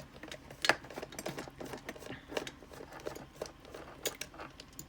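Small plastic parts of an LED table lamp being handled, giving a scatter of light irregular clicks and taps, the sharpest about a second in.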